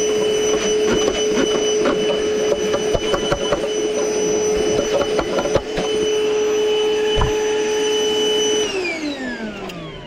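Milwaukee battery-powered vacuum running steadily, sucking crumbled foam insulation out of a water heater's anode-rod port, with scattered clicks of debris. Near the end it is switched off and its whine falls away as the motor winds down.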